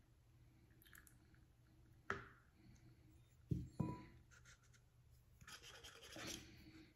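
Near quiet, with a few faint short knocks from a metal measuring spoon being set down on a towel, then a light rubbing as a small plastic funnel is handled in the neck of a small bottle.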